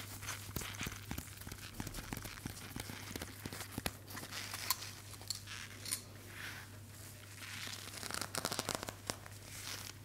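Close-miked crinkling and tearing-like rustles with many small irregular clicks, as of something being handled right at the microphone, over a steady low hum.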